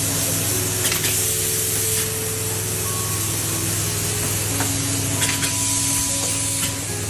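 A steady hissing noise with soft background music of slow held notes over it, and a few faint clicks.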